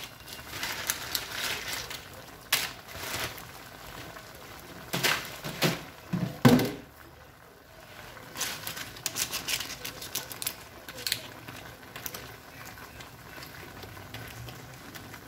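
Wooden spoon pushing crisp fried tortilla chips down into red salsa in a clay pot: irregular crunchy crackles and clicks, with a few louder strokes about midway.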